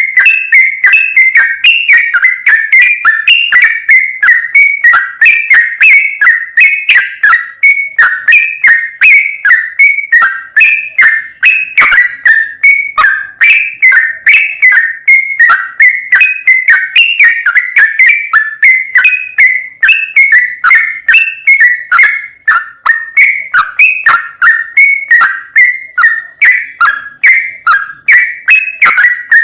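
Yellow-vented bulbul singing a long, unbroken run of short whistled notes, about three a second, as a recorded lure call for bulbul keepers.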